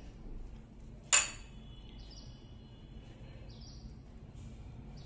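Faint birds chirping in short high calls every second or two over a steady low background hum, with one sharp click about a second in.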